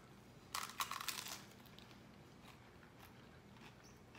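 A bite into a hard taco shell: a short burst of crunching about half a second in, lasting under a second, then faint room tone.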